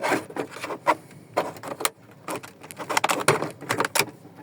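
Plastic dashboard trim and the AC control module being handled and pulled loose in a truck cab: irregular clicks, knocks and rattles of plastic parts.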